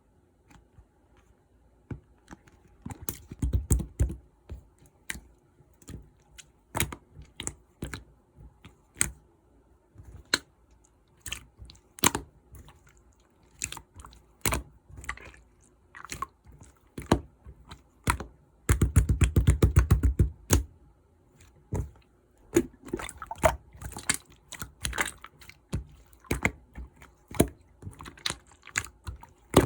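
Clear slime being worked by hand, giving a string of sharp, wet clicks and pops. A dense run of rapid clicking comes a few seconds in, and a longer, louder one about two-thirds of the way through.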